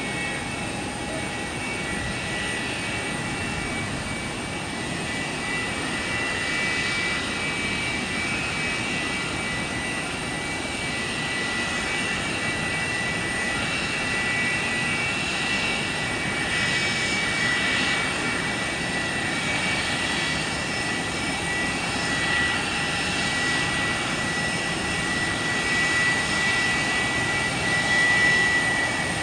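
McDonnell Douglas MD-80's rear-mounted Pratt & Whitney JT8D turbofans running at taxi power: a steady jet rumble with a high whine on top, growing slightly louder near the end as the plane passes.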